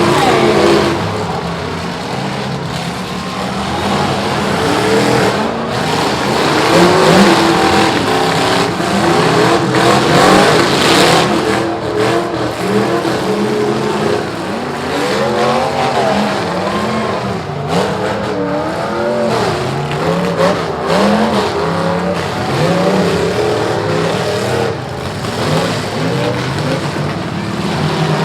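Several demolition derby cars' engines revving hard and rising and falling in pitch, with metal-on-metal crashes as the cars ram each other, several impacts standing out through the din.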